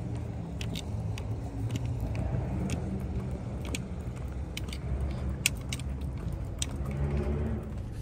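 Keys jingling in sharp, irregular clinks, carried while walking to a car, over the low, steady rumble of car traffic.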